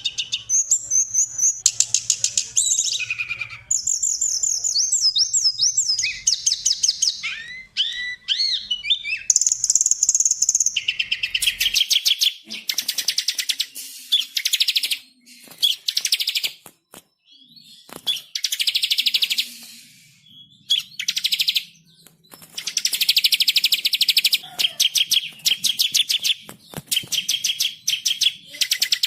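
Songbirds singing loudly in bursts of very fast, high-pitched trills and warbling, chattering phrases separated by short pauses. A faint low hum lies under the first part and drops out about halfway through, where the recording changes.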